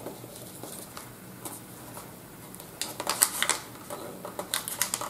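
Paper rustling and crinkling as hands handle a small package wrapped in shiny gift paper and press a die-cut paper butterfly onto it. It is faint at first, with short spells of crinkling about three seconds in and again near the end.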